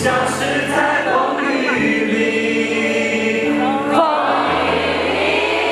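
A man singing a Mandarin pop ballad live into a microphone over a backing track, with many audience voices singing along as he holds the microphone out toward them.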